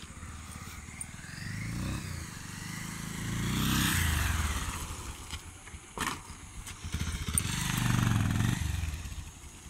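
Bajaj Pulsar 220F's single-cylinder engine running as the motorcycle rides past and away. Its note rises and falls in surges, loudest about four seconds in and again about eight seconds in.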